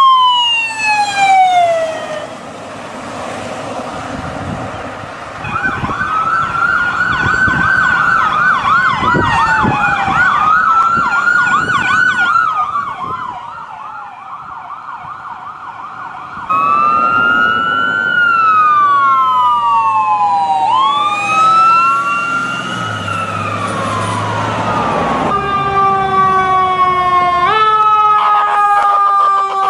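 New York ambulance electronic sirens, several recordings in a row: a wail that rises and falls slowly, at times with a fast warble laid over it. The sound cuts to a new siren about 16 seconds in and again near 25 seconds, ending on a steadier tone that slides down in pitch with a step.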